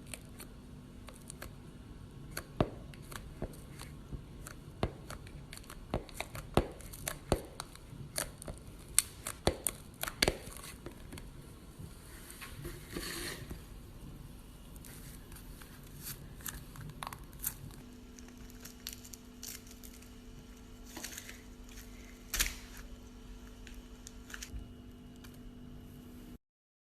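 Slime being worked by hand, giving many irregular sharp pops and crackles, thickest in the first half, over a steady low hum. The sound cuts off suddenly near the end.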